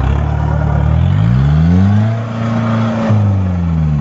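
Modified Mahindra jeep's engine revving hard under load as it climbs out of a muddy ditch. The revs rise over the first two seconds, hold, and then ease off near the end.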